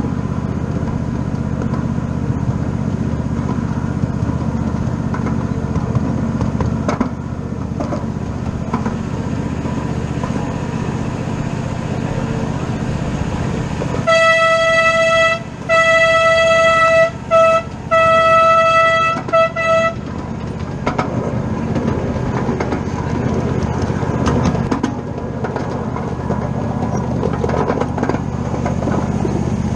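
Miniature live-steam train running with a steady low rumble. About halfway through, its whistle sounds a single clear note in a long, long, short, long pattern, followed by two short toots.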